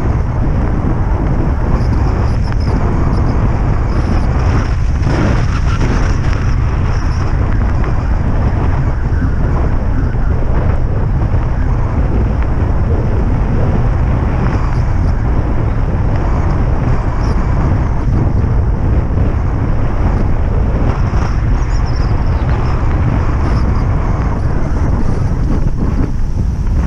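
Loud, steady wind buffeting on the microphone of a camera moving with a bike along a road, a deep, even rush with no pauses.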